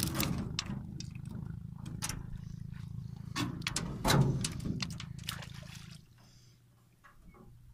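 Water splashing and streaming off a wire-mesh fish trap as it is hauled out of a lake and set against a boat, with irregular sloshes and knocks, the loudest a little past the middle, over a steady low rumble. The rumble stops about six seconds in, leaving only faint dripping.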